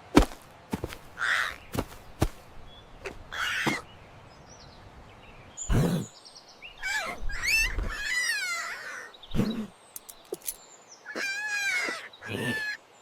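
Scattered knocks and clicks, with squeaky, chattering animal-like calls that wobble quickly in pitch, heard twice in the second half.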